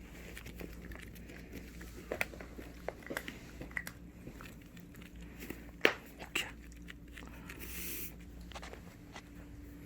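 Maltipoo puppy chewing and crunching bits of kibble found in a nosework snuffle toy, with scattered small clicks and a brief soft rustle as she noses through it.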